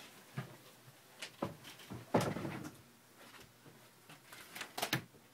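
A scattering of short knocks and clicks, as of things being handled and set down, with the loudest knock and a brief rattle about two seconds in and a few sharp clicks near the end.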